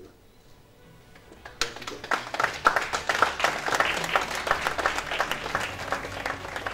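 Audience applause: many hands clapping, breaking out suddenly about a second and a half in and thinning out near the end. Faint music runs underneath.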